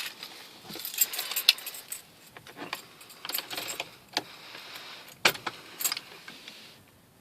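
A bunch of keys jangling and clinking in irregular bursts, with several sharp clicks. It stops about a second before the end.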